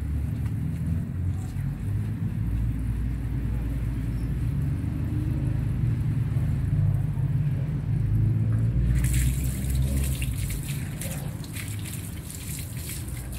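Low rumble, then about nine seconds in water from a garden hose starts splashing onto a wet dog's coat and the concrete, a steady hiss with fine crackles.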